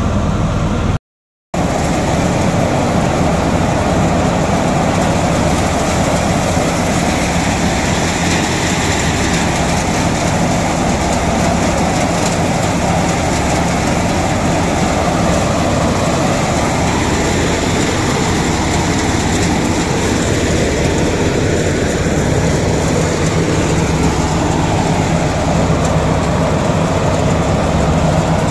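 Tractor-driven Diamond thresher running steadily while threshing taramira: the tractor engine's low drone under load mixed with the rushing whirr of the threshing drum and fan. The sound cuts out briefly about a second in.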